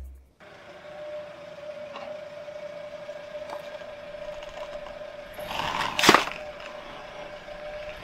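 A car tyre rolling onto a small liquid-filled container and crushing it: a short crunching build-up that ends in a sharp crack about six seconds in, over a faint steady hum.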